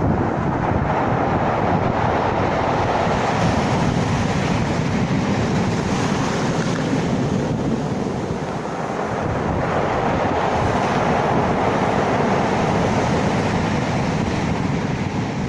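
Sea surf washing in steady noise that swells twice, with wind rumbling on the microphone.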